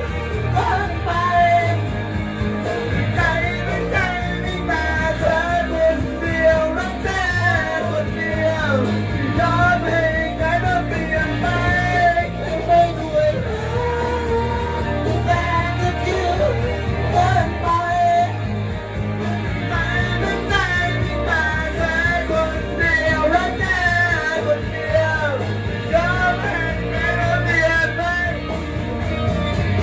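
Thai pop song playing: a voice singing a melody over a band backing with a steady beat.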